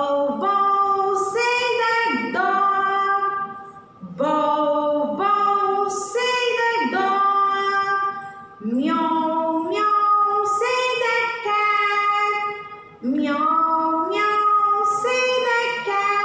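A woman singing a children's animal-sounds rhyme unaccompanied, in about four short sung phrases of held, stepping notes.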